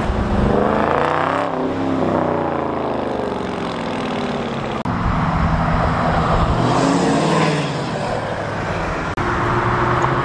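Cars and a lifted pickup truck driving past one after another, their engines rising and falling in pitch as each goes by. The loudest pass is about a second and a half in, with another around six to seven seconds.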